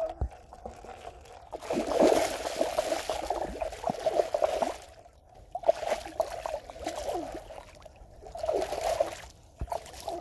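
A hooked fish thrashing and splashing at the water's surface as it is pulled in on a hand line, in three bouts of splashing, the first and longest starting about two seconds in, with short pauses between.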